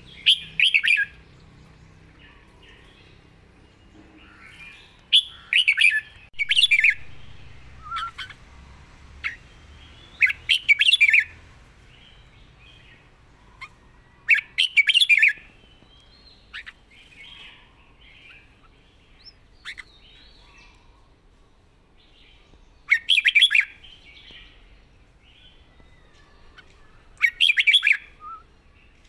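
Red-whiskered bulbul singing about six short warbled phrases of around a second each, separated by pauses with softer chirps between.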